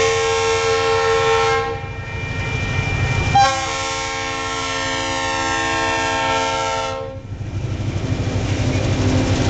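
Diesel freight locomotive's multi-note air horn blowing for a grade crossing: one blast cuts off about a second and a half in, and a second long blast starts about two seconds later and holds for about three and a half seconds. Under and after the horn, the low rumble of the locomotive engines.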